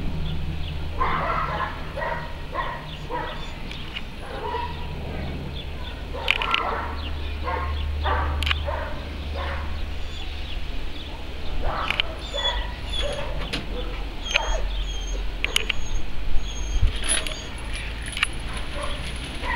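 A twin-turboprop airliner drones steadily overhead while a dog barks and yelps in short bursts, mostly in the first half. Birds chirp in high, short notes in the second half.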